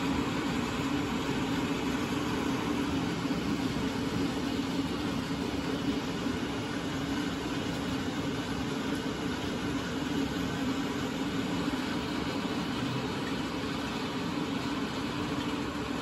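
Steady mechanical hum with a hiss, at an even level with no sudden sounds.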